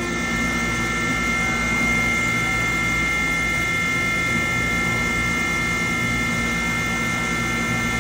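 CNC milling machine running: a steady whine with several constant high tones over a noisy hiss from the spindle and the cut.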